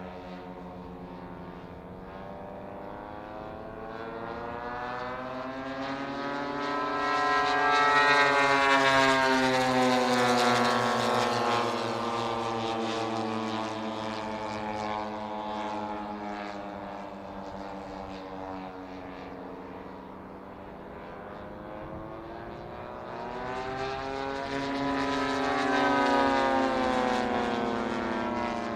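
Propeller-driven RC model Grumman F8F Bearcat warbirds, their piston engines droning steadily as they fly. Each of the two passes, about a third of the way in and again near the end, gets louder and then drops in pitch as it goes by.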